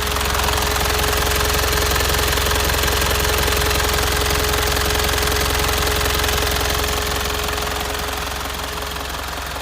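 Hino S05D four-cylinder diesel engine of a 2002 Hino Dutro truck running steadily, a little louder through the middle and easing off near the end.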